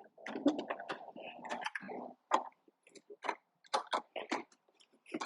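Workshop handling noise: a scraping rub for about two seconds, then a string of light, separate clicks and knocks.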